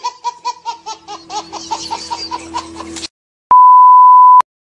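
A baby laughing in quick repeated bursts, about five a second, for about three seconds. After a short gap comes a loud, steady test-pattern beep at about 1 kHz, lasting about a second and cutting off abruptly.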